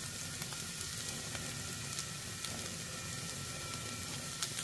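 Diced seasoned chicken frying in a frying pan: a steady sizzling hiss with occasional small pops.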